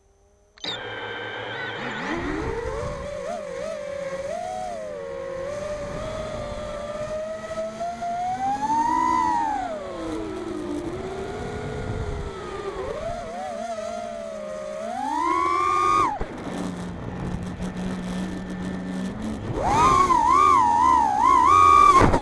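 FPV racing quadcopter's brushless motors and propellers, heard from the onboard camera: they spin up suddenly about half a second in, then whine and buzz, rising and falling in pitch with the throttle. About 16 s in the sound drops to a low steady hum for about three seconds, then climbs back to a high whine.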